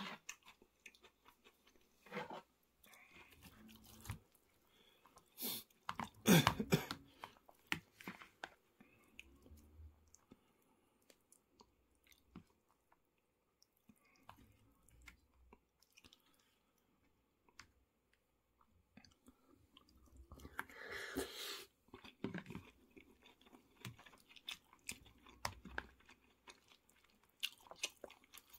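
Chewing of cheese pork cutlet curry with rice, in irregular bursts with soft crunches and clicks, loudest twice. A metal spoon scrapes and taps in a plastic bowl between mouthfuls.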